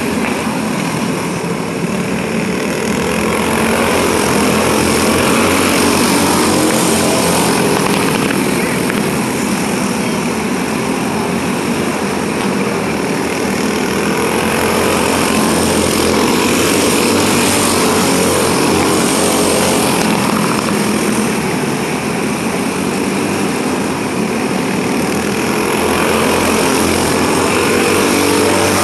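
A pack of dirt-track racing karts with small engines running hard at race speed, a steady engine drone that swells and eases a few times.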